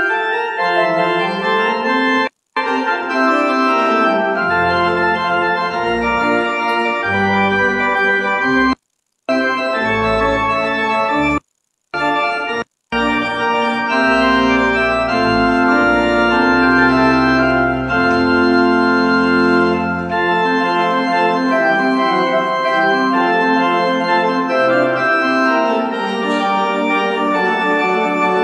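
Church pipe organ playing the closing voluntary after Mass: sustained chords, with deep pedal bass notes through the middle. The sound cuts out completely four times, for a fraction of a second each.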